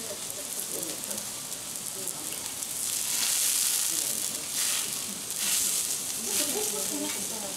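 Vegetables sizzling on a hot steel teppanyaki griddle: a steady high hiss that swells louder in a few surges from about three seconds in.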